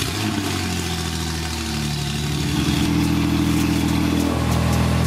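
Porsche 991.2 Carrera 4S twin-turbo flat-six idling steadily just after a cold start, heard through a Fi valvetronic exhaust with catless downpipes.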